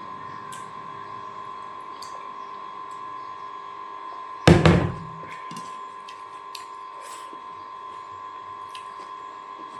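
A single loud thunk, two quick hits close together, about four and a half seconds in, over a steady faint hum.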